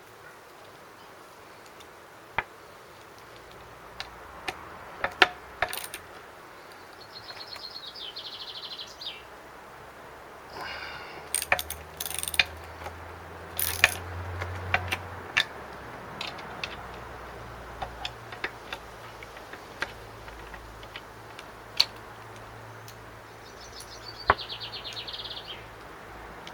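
A ratchet wrench clicking in two short runs, among scattered clanks and knocks of tools and metal parts, while bolts are undone in the tear-down of a Briggs & Stratton mower engine.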